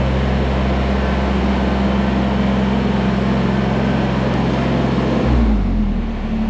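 Kubota BX23S subcompact tractor's three-cylinder diesel engine running at a steady speed, dropping in pitch about five seconds in as the throttle comes back, then running on at the lower speed.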